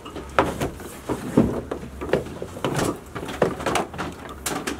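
Old car audio cable being pulled out from under a car seat and gathered by hand: irregular knocks, clicks and rubbing as the wire drags past the seat and sill trim.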